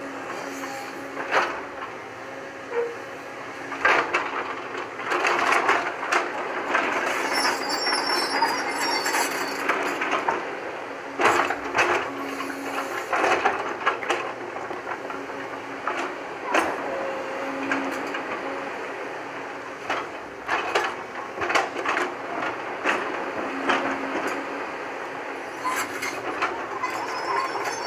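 JCB tracked excavator at work: a steady engine drone under irregular metallic clanking and rattling from the bucket, boom and tracks, with sharp knocks of rock.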